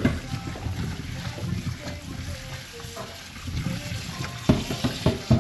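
Tap water running into a stainless steel sink and splashing over cubes of yam as a hand rubs and turns them, with two sharp knocks near the end.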